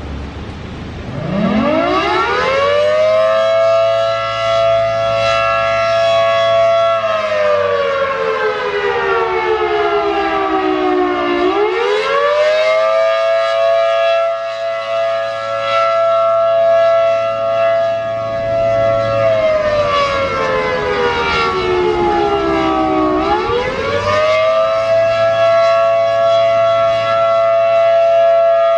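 ACA Allertor 125 rotating siren with 10/12 ports, winding up about a second in and sounding the attack signal: a chord of tones that holds its pitch, slides down slowly, then climbs back up, twice over.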